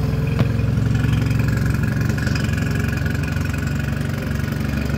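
Mercury 9.9 hp two-cylinder four-stroke outboard running at a steady fast idle just after starting, held up by its automatic choke.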